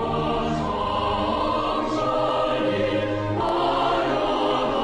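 Background music with held choral voices, the chord changing about three and a half seconds in.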